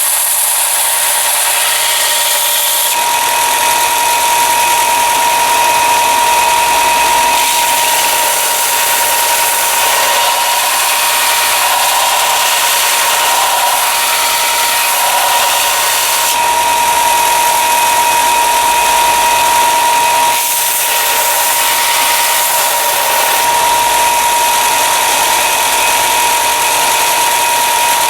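Electric sander grinding a Scandi bevel into a hand-forged steel carving knife blade: a steady high whine with the hiss of steel on the abrasive. The sound shifts every few seconds as the blade is pressed and moved.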